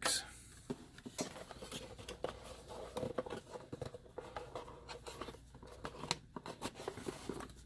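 Hands rummaging among packaging and metal miniature pieces: many small irregular clicks and light rustling.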